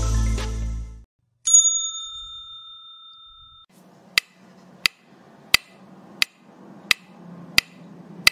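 Background music ends about a second in. A bright, bell-like ding follows and rings out for about two seconds. It gives way to a steady run of sharp clicks, about one every 0.7 seconds, over a faint hum.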